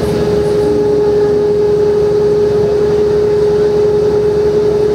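Inside a 1994 Mercedes O405N city bus cruising at steady speed: the Mercedes OM447h diesel engine and ZF 5HP-500 automatic gearbox running under way, with a steady whine holding one pitch over the drivetrain and road rumble.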